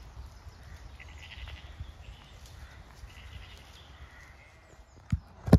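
Zwartbles lambs bleating, three or four calls spread over a few seconds, followed near the end by two sharp thumps, the loudest sounds.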